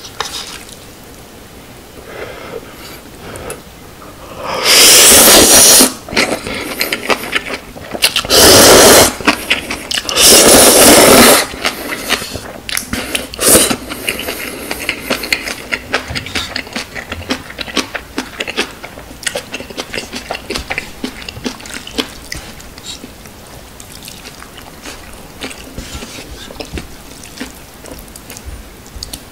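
Instant ramen noodles slurped loudly three times, each slurp about a second long, followed by chewing with many small wet mouth clicks.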